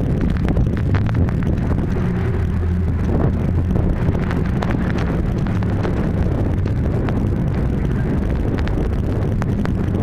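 Heavy wind buffeting the microphone over the steady running of a rigid inflatable lifeboat's engines as it drives through rough, wind-driven water, with many short buffets and splashes.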